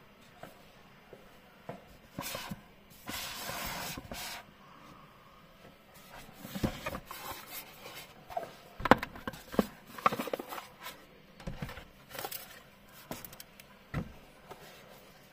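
Unboxing handling noise: a cardboard box lid slid off with a hiss, then a run of light knocks and clicks as a hard sunglasses case is handled and set on the table, with a low thump near the end.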